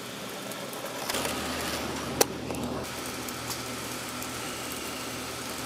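Electric blowers running steadily with a rushing whir and a low hum that sets in about a second in; a single sharp click about two seconds in.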